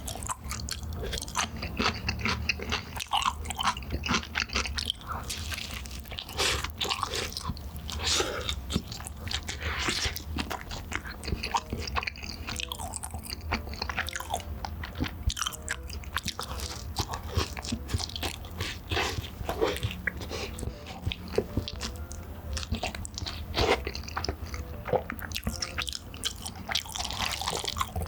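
Close-miked eating sounds: a person chewing and biting into Chicago-style cheese and meatball pizza, a steady run of short smacks and crunches.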